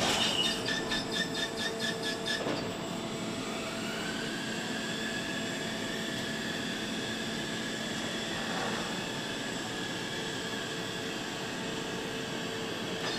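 Foundry casting machine running through its cycle: rapid clicking for the first couple of seconds over a steady machine hum, then a whine that rises about four seconds in and stops near nine seconds.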